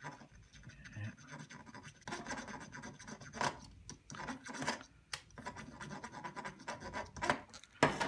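Irregular scraping and rubbing of a soldering iron tip worked against a small brass-tube nipple on a throttle cable wire as the wire is turned to spread the solder all over it, with a few sharper clicks in the second half.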